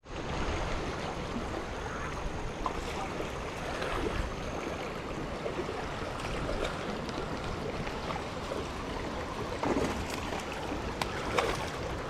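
Shallow river running over rocks: a steady rush of water, with a few faint clicks near the end.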